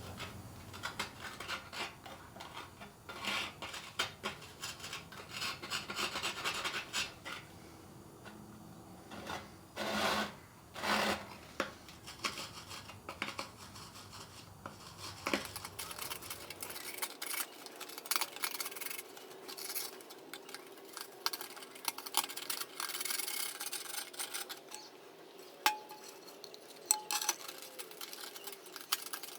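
A hand cutting tool scraping and rasping grooves into soft firebrick, in short irregular strokes.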